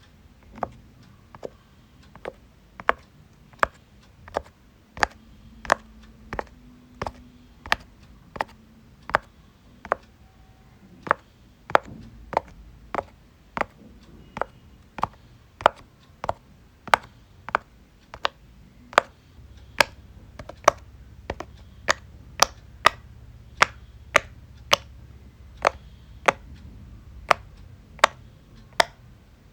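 Silicone pop-it fidget toy bubbles being pressed one by one, each giving a short sharp pop at a steady pace of about three pops every two seconds.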